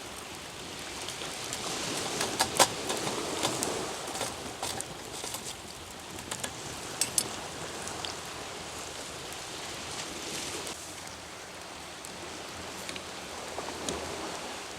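Campfire crackling, with sharp pops and ticks over a steady hiss, as fish roast over the flames. The loudest pop comes about two and a half seconds in.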